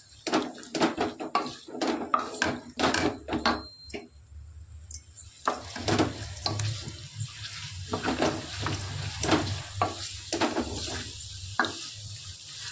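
A wooden spatula scraping and knocking against a metal kadhai as chicken pieces are stirred and turned in thick masala, in quick irregular strokes with a short pause near the middle. The frying masala sizzles underneath in the second half.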